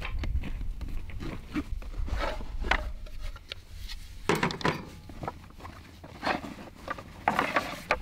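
Wooden boards being handled and set down on a folding camp table: a string of knocks and scrapes, strongest about four seconds in and again near the end. Wind rumbles on the microphone during the first few seconds.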